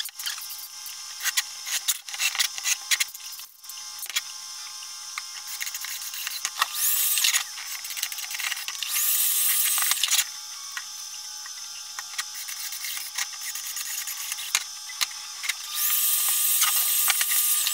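A small electric motor is switched on three times in short runs. Each run winds up quickly to a steady high whine with a hiss, and the last and longest comes near the end. Between the runs, tools and metal click and knock on the bench.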